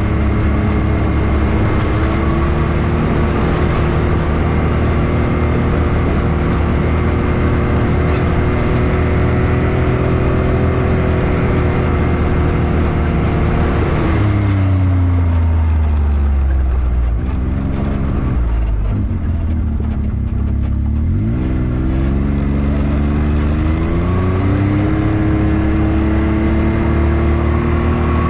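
Can-Am Maverick X3 side-by-side's turbocharged three-cylinder engine running at a steady trail pace, then easing off about halfway through. The revs drop low for a few seconds, then the engine accelerates back up to a steady pace.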